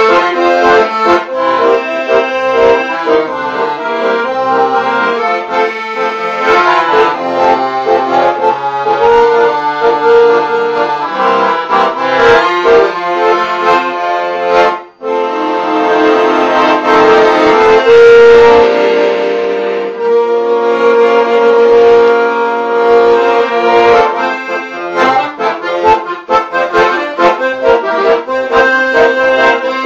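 Accordion music: a tune of quick short notes, with a momentary break about halfway through and a long held chord a few seconds after it.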